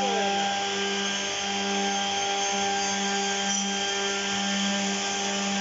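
CEHISA 208 P edge banding machine running steadily: an even motor hum with a constant hiss over it.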